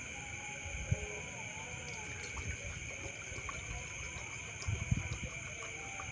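Steady drone of night insects, with a few dull knocks from camp cookware being handled while water is set to heat: one about a second in and a cluster near five seconds.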